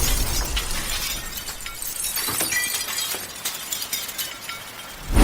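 A shattering, glass-like crash fades out, with scattered tinkling clicks, in a break in a Bollywood pop song. A deep hit comes right at the end as the music returns.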